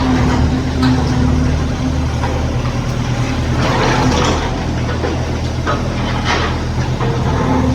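Mini excavator's engine running steadily, with a few knocks and scraping noises, the loudest about four seconds in and again past six seconds.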